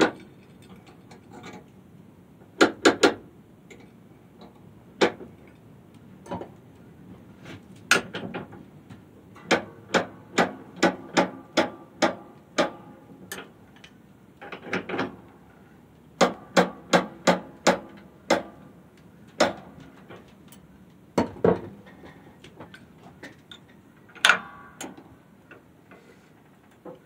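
Metal parts of a homemade centrifugal casting machine clicking and knocking as it is handled and reassembled by hand, the knocks ringing briefly. Two runs of quicker knocks, about two a second, come in the middle.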